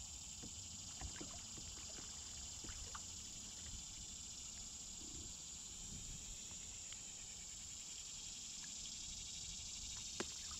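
Steady high-pitched drone of insects, with faint scattered clicks and light knocks of fishing gear being handled in a kayak, and one sharper knock about ten seconds in.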